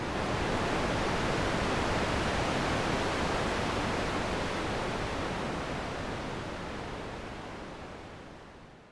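Synthesized wind: white noise through a low-pass filter whose cutoff is moved by a chaos modulator, giving a gusty, changing hiss as the high frequencies come and go. It fades out over the last few seconds.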